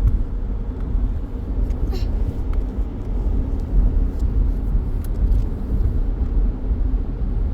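Steady low rumble of a car heard from inside the cabin while it is being driven, with a few faint clicks.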